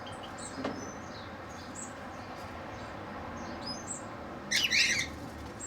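Small aviary birds chirping, with short high chirps scattered throughout and one louder call of about half a second near the end.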